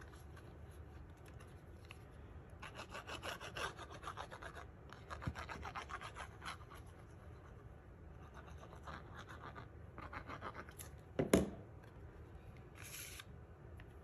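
Faint rubbing and scratching of a liquid glue bottle's applicator tip and fingers working over cardstock, in two runs of quick strokes, with a single knock about eleven seconds in.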